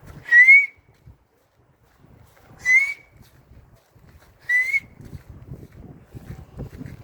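Three short whistles, each rising slightly in pitch, about two seconds apart, over a low rumble that picks up near the end.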